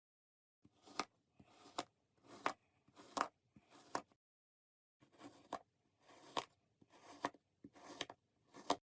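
Kinetic sand being cut in a series of strokes: each is a soft grainy crunch that ends in a sharp tap, about ten in all, with a short pause just before halfway.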